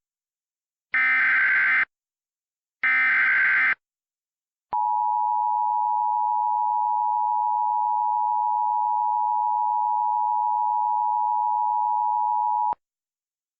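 Emergency Alert System tones starting an alert. First come the last two of the three SAME header data bursts, each about a second long, a second apart. After a short pause comes the steady EAS attention tone, held for about eight seconds and cut off sharply.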